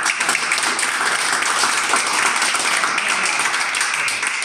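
Applause: a group of people clapping their hands, dense and steady.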